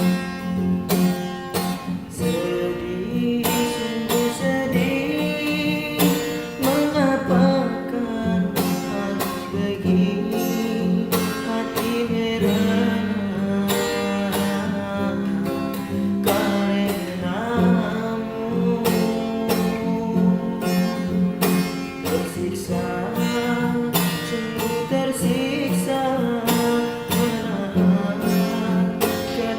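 Singing accompanied by guitar: a sung melody over plucked and strummed guitar chords.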